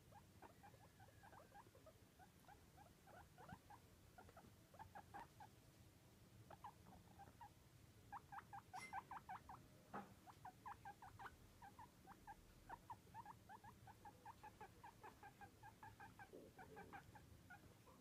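Guinea pig giving a faint run of short squeaks, several a second, busiest about halfway through, with one faint tap soon after.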